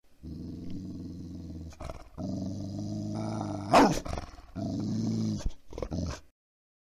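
Dog growling in several long, low rumbles, with one sudden loud snarl about four seconds in. The sound cuts off abruptly near the end.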